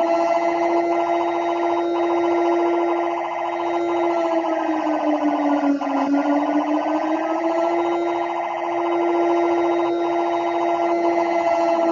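Emergency alert siren sounding as a mock alarm: one steady wailing tone that sags in pitch about halfway through, then climbs back and holds again.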